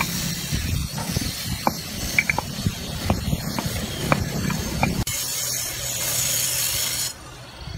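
Concrete paving blocks clinking together and being tapped with a hammer as they are set into sand: a scatter of short, sharp clicks over a steady hiss that drops away near the end.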